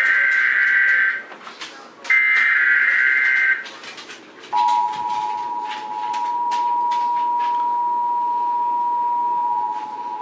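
Emergency Alert System alert opening: two bursts of SAME header data, each just over a second long, then the EAS two-tone attention signal starts about four and a half seconds in and holds steady. Together they mark the start of a new alert broadcast.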